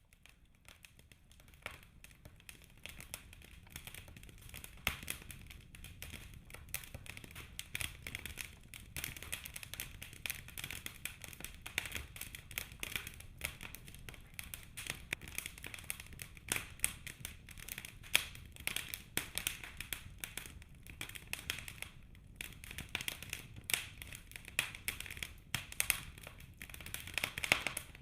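Fire burning in a fireplace: dense, irregular crackling and popping over a steady low rumble of flames, fading in over the first few seconds.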